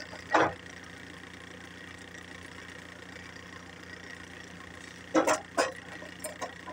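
Steady engine hum, with a short loud sound about half a second in and two more close together about five seconds in.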